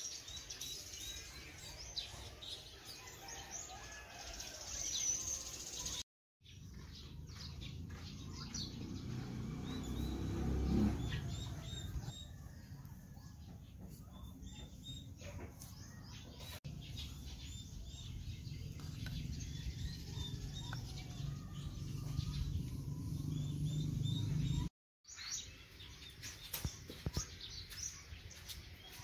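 Small birds chirping and tweeting over a low rumbling noise that swells about ten seconds in. Near the end, a few light clicks as dry twigs are handled.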